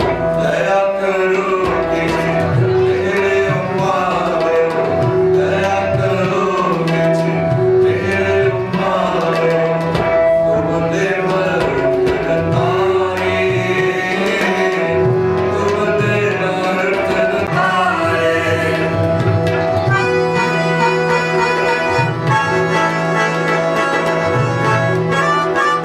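Sikh kirtan music: harmonium held tones and melody over a steady tabla rhythm. The texture changes about twenty seconds in.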